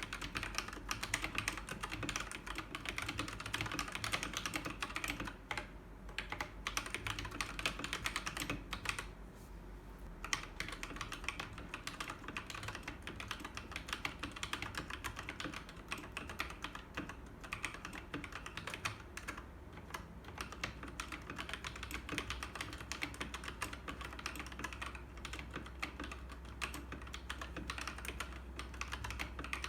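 Typing on an Akko 3087 mechanical keyboard with pink switches: a fast, steady clatter of keystrokes that thins out briefly about nine seconds in.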